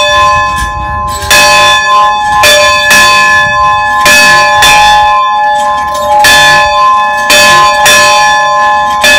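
A large bell hung on a post frame, swung by its pull rope and clanging about once a second, sometimes twice in quick succession. Each stroke rings on into the next.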